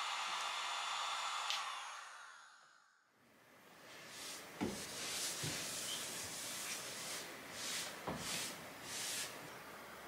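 A small electric hot-air blower, of the kind used to smooth wax candles, whirs steadily and fades out about two seconds in. Then comes quieter handling noise with two soft knocks and a few brief rustling swishes.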